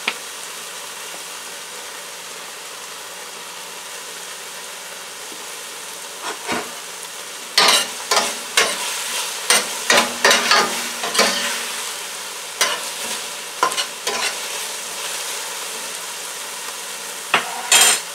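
Vegetables sizzling steadily in a hot stainless steel skillet. From about seven seconds in, a spoon scrapes and clinks against the pan as they are stirred, with a few more clinks near the end.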